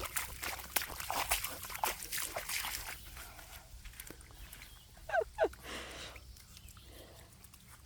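Miniature American Shepherd puppies splashing and sloshing through shallow puddle water, with a run of quick splashes for the first few seconds. About five seconds in comes a pair of short high-pitched yips.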